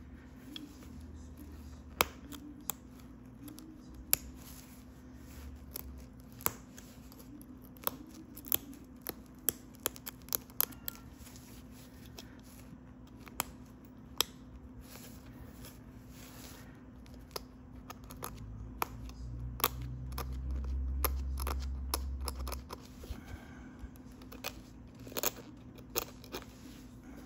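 Pressure flaking heat-treated Flint River chert at a notch: a string of sharp, irregularly spaced clicks and snaps as small flakes pop off under the flaking tool. A low rumble swells for a few seconds about two-thirds of the way through.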